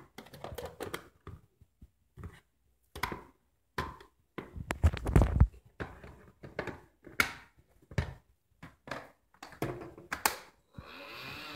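Handling noises: a series of clicks, knocks and thunks, with a heavier, louder thump about five seconds in. A steady hiss begins near the end.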